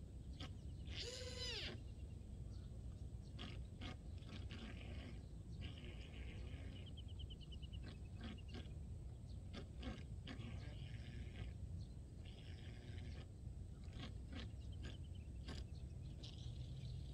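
Outdoor birds calling: scattered short chirps and a quick trill near the middle. About a second in there is also a drawn-out, rising-then-falling animal call.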